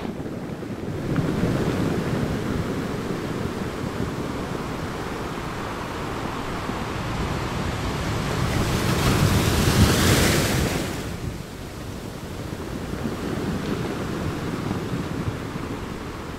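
Ocean surf breaking and washing where the river meets the sea, with wind buffeting the microphone. One wave surges up to its loudest about ten seconds in, then falls away.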